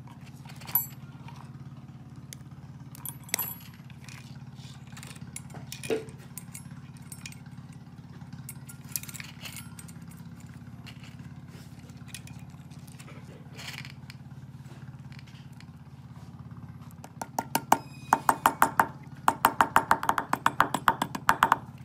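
Steel bicycle chain handled with occasional single clinks of its links, then near the end two quick runs of sharp metal taps, about six a second, as a small hammer taps a chain link pin against a wooden block.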